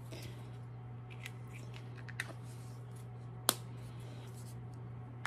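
Small plastic lip balm pots clicking and tapping as they are handled and set into their clear plastic tray, a handful of short sharp clicks with the loudest about three and a half seconds in, over a steady low hum.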